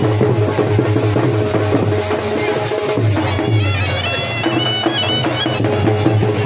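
Loud traditional music: steady drumming under a reed-like wind instrument, whose high melody steps up and down from about three seconds in.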